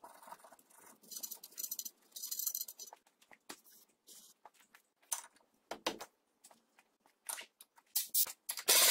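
Aerosol spray can hissing in short spurts onto a tie rod end, between light metallic clinks of hand tools; the clicks grow louder near the end.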